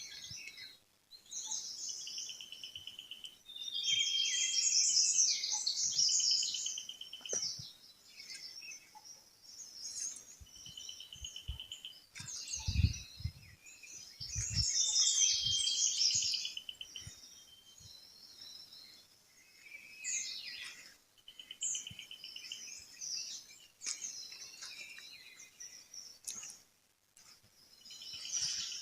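Several small birds chirping and twittering in bouts, one bird repeating a short, fast trill again and again. Two low thumps come about halfway through.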